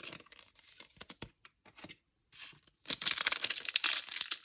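Faint rustles and light handling clicks, then about three seconds in a Topps Chrome baseball card pack's foil wrapper is torn open with loud, dense crinkling.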